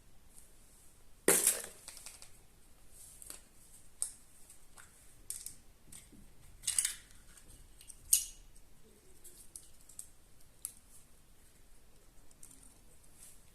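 Kinder Surprise eggs being handled and opened: scattered clicks and short crinkles of the plastic toy capsules and foil wrapping, the loudest about a second in, then a handful of smaller clicks every second or two.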